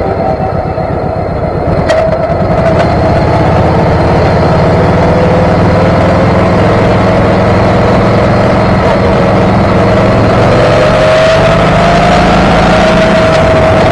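Motorcycle engine running under way, its pitch sagging slightly and then climbing as the bike speeds up near the end, with heavy wind rumble on the bike-mounted action camera's microphone.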